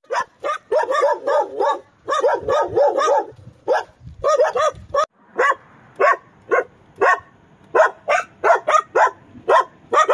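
Belgian Malinois barking over and over: quick runs of several barks a second at first, then single barks spaced a little further apart.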